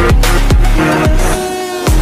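Loud electronic dance music with a heavy bass and regular kick drum; the bass drops out briefly just past the middle before the beat comes back in.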